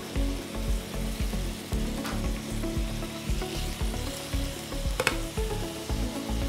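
Chicken pieces and tomatoes sizzling and bubbling in a marinade in a non-stick frying pan as the sauce boils down, with a plastic spatula stirring and scraping through it. Two sharp clicks stand out, about two seconds in and again near five seconds.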